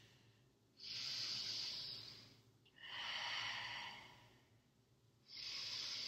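A woman breathing slowly and audibly while holding a yoga pose: three long breaths, each lasting about a second and a half to two seconds.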